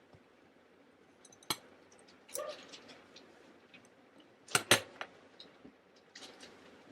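A few scattered sharp clicks and knocks, the loudest a double click about four and a half seconds in.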